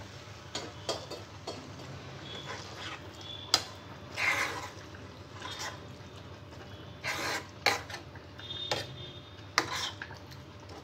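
A spatula stirring watery okra masala curry in a frying pan: about a dozen separate scrapes and knocks against the pan, the sharpest about a third of the way in, with the wet gravy sloshing.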